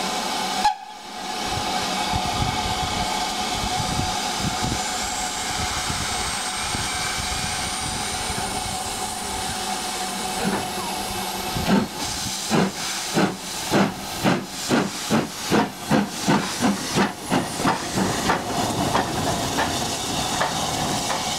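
Southern U class 2-6-0 steam locomotive No. 31806 standing with a steady hiss of steam. From about twelve seconds in it starts away with regular exhaust beats that quicken as it gathers speed.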